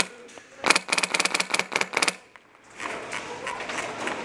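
Airsoft rifle firing one rapid full-auto burst of sharp clicking shots, about a second and a half long, starting about half a second in.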